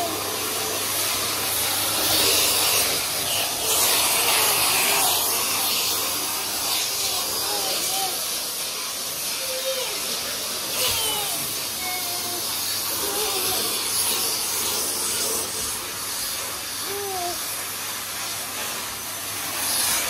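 Vacuum cleaner running steadily, its hiss a little louder for a few seconds near the start.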